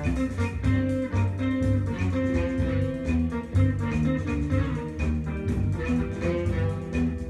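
Guitar music with bass and a steady beat, played through a pair of Graham Audio Chartwell LS6 two-way bookshelf speakers with their treble adjustment set flat.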